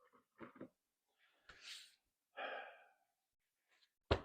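Scattered handling noises while a chainsaw's guide bar is taken off: a few soft taps, two breathy rustling swells, and a sharp knock about four seconds in.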